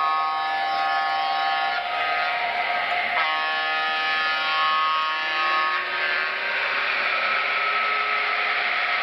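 Onboard sound system of N scale BLI Paragon 4 EMD F3 diesel locomotives playing a diesel air horn over the engine and running noise. The horn sounds in long blasts with a short break about three seconds in and stops about six seconds in, after which a single low engine tone rises slowly.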